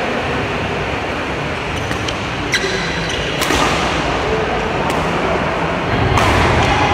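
Badminton rally: a string of sharp racket strikes on the shuttlecock at uneven intervals, the loudest about three and a half and six seconds in, each with a short ring of the hall behind it, over a steady noise of the hall.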